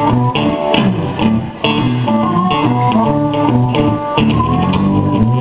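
Live blues from an electric guitar and a harmonica cupped against a microphone, the amplified harp holding sustained reedy notes over the guitar's picked rhythm. Level dips briefly about a second and a half in.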